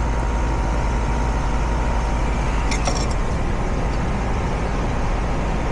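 Heat pump outdoor unit running in heat mode: a steady low hum from its Copeland scroll compressor, with a few light clicks about three seconds in.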